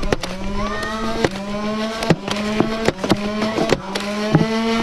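Motorized Nerf blaster's flywheels spinning up and held at a steady, slightly rising whine while darts fire with a scatter of sharp clicks, cutting off near the end.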